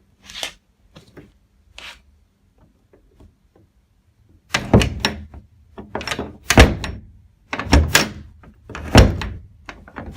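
A hallway door with a newly fitted Kwikset passage knob and latch being tried: a few light clicks, then from about halfway in several loud thunks as the door is shut and the latch bolt snaps into the strike plate.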